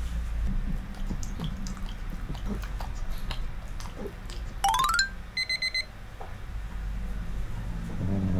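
Edited-in cartoon sound effects: a quick rising run of tones about halfway through, then a short burst of rapid alarm-clock-like beeping, over a low steady hum.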